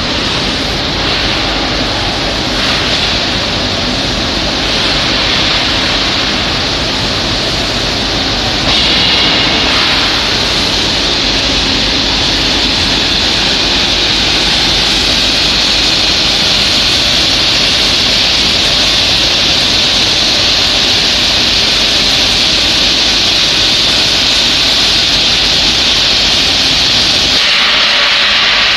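Industrial metal-finishing machinery running with a loud, steady rushing hiss that steps up and grows brighter about nine seconds in.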